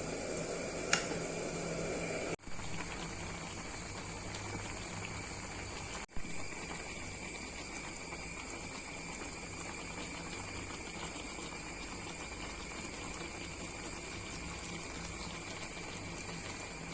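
Steady high-pitched hiss, cut off briefly twice.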